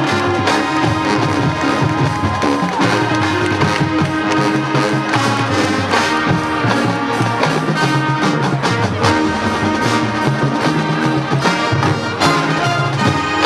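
High school marching band playing its field show: full brass ensemble of trumpets, trombones and sousaphones sustaining loud chords, with percussion hits cutting through.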